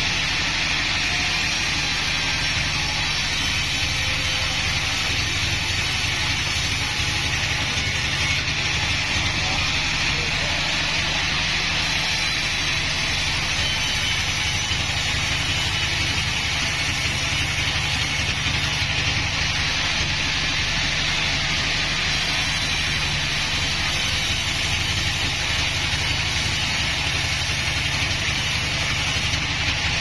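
Band sawmill (a Bandsaw36 from Pandan, Taiwan) running steadily, its vertical blade ripping lengthwise through a mahogany log. A low machine hum lies under a continuous hiss of the cut.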